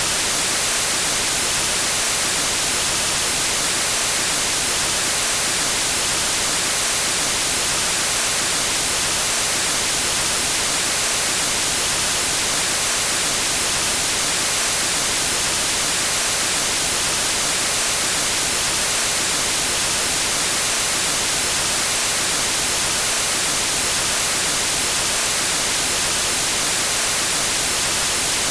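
Steady white noise like an untuned analogue TV's static hiss, even and unchanging, strongest in the high frequencies.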